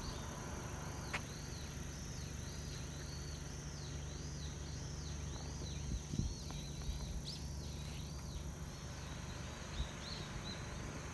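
Insects calling in the open countryside: a steady high trill with a repeated arching chirp about twice a second that fades near the end, over a low wind rumble on the microphone and a few brief knocks.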